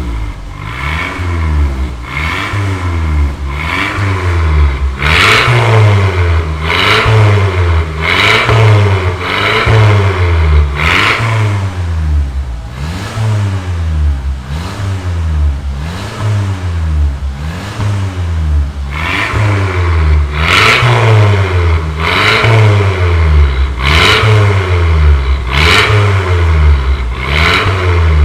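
Mercedes-Benz A250's turbocharged 2.0-litre four-cylinder, breathing through a full stainless-steel exhaust with custom downpipe and valved muffler, revved repeatedly while stationary. Quick throttle blips about once a second, the engine note rising and falling with each.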